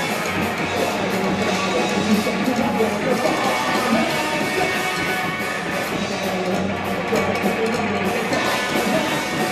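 Live psychobilly band playing: electric guitar, upright bass and drums.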